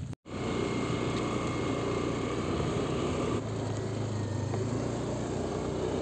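A motorcycle engine running steadily while riding, its tone shifting slightly about three and a half seconds in.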